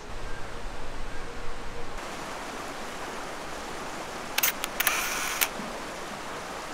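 Steady rush of running water from the river and the turning water wheel, changing in tone about two seconds in. A little past the middle comes a camera shutter: sharp clicks and a short whir, about a second long.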